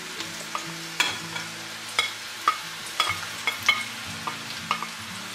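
Sliced mushrooms sizzling in hot oil in an enamelled pan while a wooden spoon pushes them off a plate and stirs them, with sharp knocks of the spoon against the plate and pan about once or twice a second.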